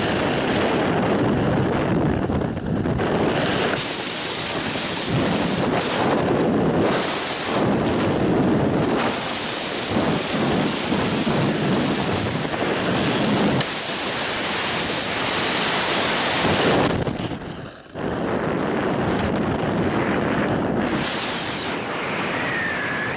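Heavy wind rushing and buffeting over a skydiver's helmet-camera microphone during the fall after cutting away a malfunctioning main parachute canopy. The noise dips sharply for a moment about three quarters of the way through, and a faint whistling tone glides down near the end.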